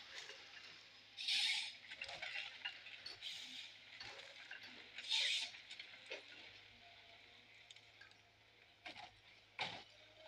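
Footsteps crunching through dry twigs and forest litter during the first half, then a few small clicks and two sharp cracks near the end, over a faint steady low hum.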